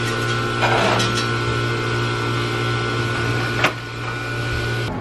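Steady electric hum of back-room refrigeration machinery, with a brief rustle about a second in and a single sharp click, like a latch, about three and a half seconds in.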